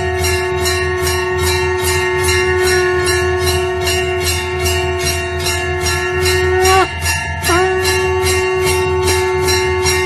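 Temple bells ringing continuously, struck in a rapid, even rhythm over a sustained ringing tone. The main tone breaks off briefly about seven seconds in and then resumes.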